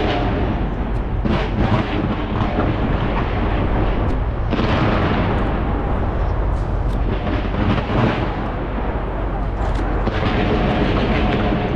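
Skyscraper New Year fireworks display going off in a continuous barrage of booms and crackling over a constant low rumble. Sharper bursts stand out every few seconds: about a second in, at four and a half seconds, around eight seconds and near ten seconds.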